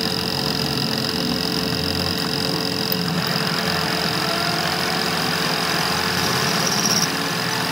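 Metal lathe running, its tool facing the end of a spinning piston blank: a steady machine hum with a high, steady whine.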